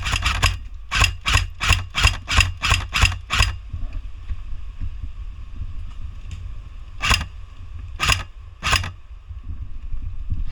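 Airsoft gun firing a quick string of about a dozen shots, roughly three a second, then three more single shots a second or less apart.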